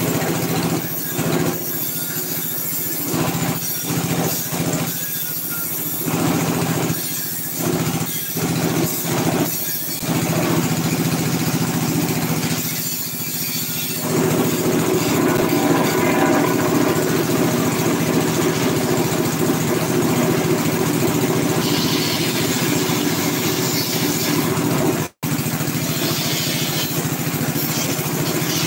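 Small road roller's engine running steadily, getting louder about halfway through.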